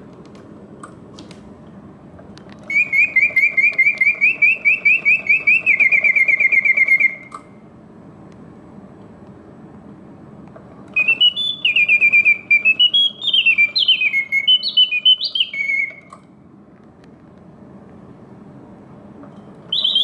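Vintage Karl Griesbaum double singing bird cage singing through its bellows-blown whistle. It plays a fast warbling trill for about four seconds, then a pause of several seconds, then a phrase of rising and falling whistled notes, with another phrase starting right at the end. The clockwork runs steadily under the song and through the pauses, and the long pauses show the mechanism working as it should.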